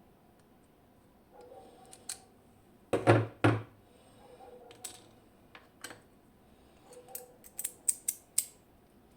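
Small metal clicks and clinks from a lock and lockpicking tools being handled, with two louder knocks about three seconds in and a quick run of sharp clicks near the end.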